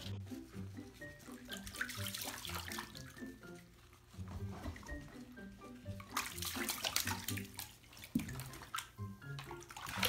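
Water sloshing and splashing in a bathtub around a wet dog, in bursts, the longest a little past the middle, over background music with a steady run of notes.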